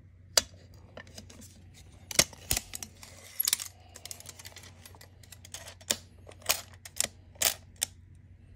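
Irregular sharp clicks and light taps, about nine of them and unevenly spaced, from a tape measure being handled and set against the metal of an electric scooter's opened hub motor.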